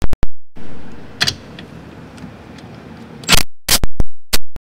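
Compact cordless impact wrench working the 13 mm bolts that hold the side mirror, fired in short bursts: a few sharp, loud hits at the start and a quick cluster of them near the end, with quieter noise in between.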